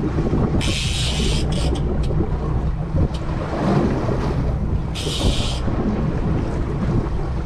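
A boat's engine running steadily under wind buffeting on the microphone, with water noise around the hull. There are a few short rushes of hiss, one about half a second in and another about five seconds in.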